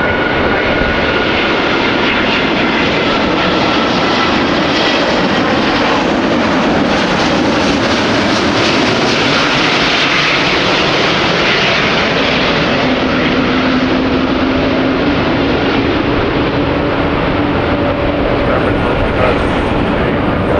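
Airbus A380 airliner on landing approach: its four jet engines give a loud, steady roar with a faint high whine, the roar brightest around the middle.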